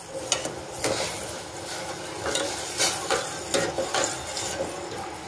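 A steel ladle stirring sugar syrup in a stainless steel pot, with irregular scrapes and light clinks against the metal. Under it is a faint sizzle of the syrup beginning to boil.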